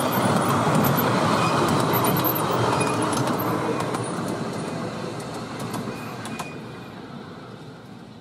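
A 10¼-inch gauge miniature railway train's coaches rumbling over the rails as they pass, with scattered light clicks, the sound fading steadily as the train moves away.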